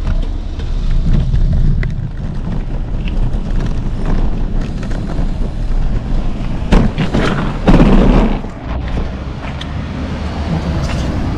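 Wind buffeting the microphone of a moving bicycle rider, over a steady rumble of road and traffic noise, with two louder rushes of noise about seven and eight seconds in.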